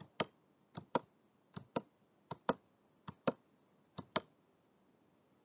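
Sharp clicks in six evenly spaced pairs, each pair about three-quarters of a second after the last: clicking at a computer, bringing up the slideshow's letters one at a time.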